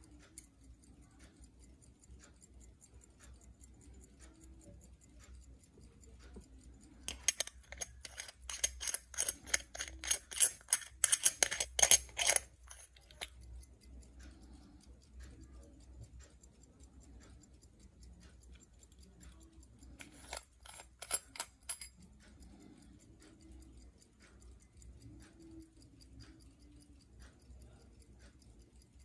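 Antique Hampden 18-size, 15-jewel pocket watch ticking faintly and evenly. About seven seconds in come some six seconds of loud, rapid metallic clicking from the watch's crown and case being worked by hand, and a shorter spell of the same clicking around twenty seconds in.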